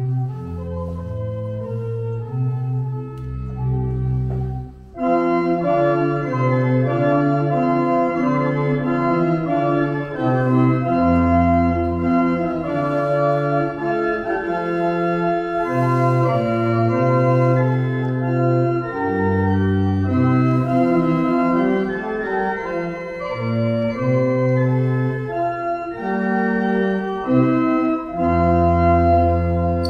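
Pipe organ (a Wegenstein church organ) playing sustained chords over a moving bass line. After a brief break about five seconds in, it comes back fuller and brighter.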